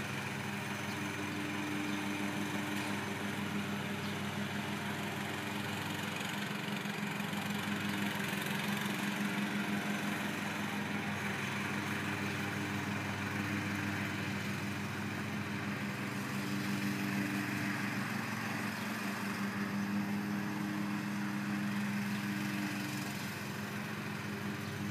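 Riding lawn mower engine running steadily, growing a little louder and quieter as the mower moves around the yard.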